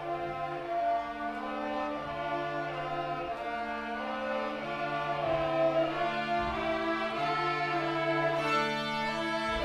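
Children's string ensemble, mostly violins, playing a piece in long held notes, with a lower line that moves to a new note every second or two.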